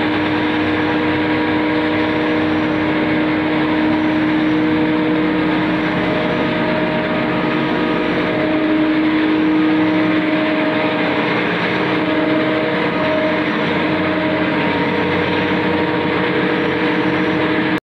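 Spice grinding machine running steadily under load, a loud constant motor hum and whir as it grinds and blows powder into its cloth filter bags.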